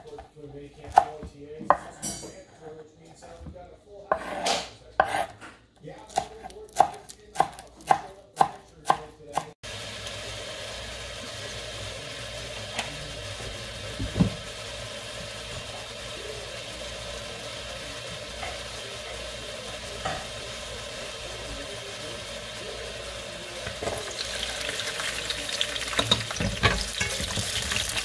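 Kitchen knife chopping green onions on a wooden cutting board, about a dozen strokes roughly one a second. This gives way abruptly to a steady low hiss, and near the end sliced garlic starts sizzling in hot oil in a frying pan as it is stirred.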